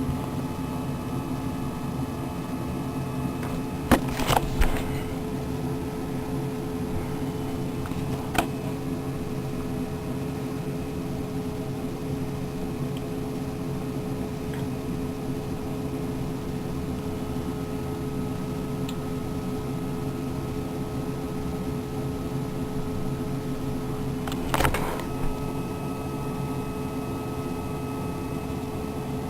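Steady machine-like hum with several held tones, broken by a few short sharp clicks: a pair about four seconds in, one about eight seconds in, and another pair near twenty-five seconds.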